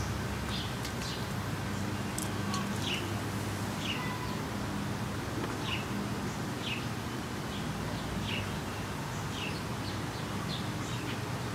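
A bird calling with short, falling chirps about once a second, over a steady low hum.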